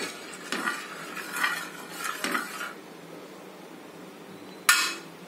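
Metal spoon scraping and tapping on a cast-iron griddle while spreading ghee: three short bouts of scraping in the first three seconds, then one sharp clink near the end.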